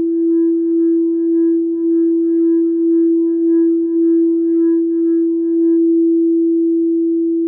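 Quartz crystal singing bowl ringing with one sustained tone that wavers gently in loudness. Its higher overtones drop out about six seconds in, leaving the main tone.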